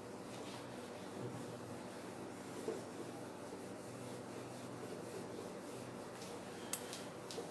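Faint rubbing of a handheld eraser wiped back and forth across a whiteboard, clearing off marker writing, with a couple of sharp ticks near the end.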